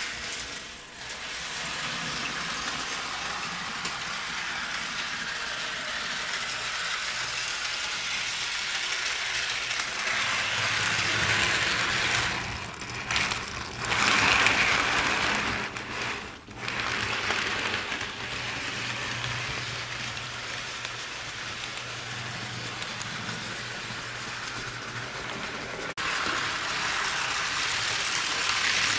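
HO scale model steam locomotive running on sectional track: a steady clicking rattle of its wheels on the rails mixed with the hum of its motor and gears. The rattle grows loudest as the engine passes close, about halfway through.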